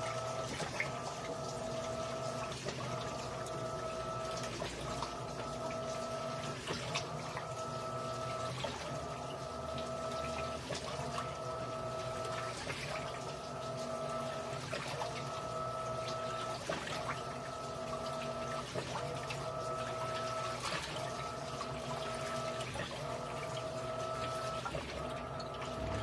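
Electrolux LAI17 17 kg top-load washing machine agitating a king-size blanket in water: a steady motor hum that breaks off briefly about every two seconds as the agitator changes direction, over continuous sloshing.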